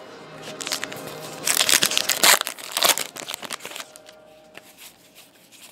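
Crinkling and rustling of trading cards and foil pack wrappers being handled, loudest in a burst of crackles from about a second and a half to three seconds in, then fading to light handling noise.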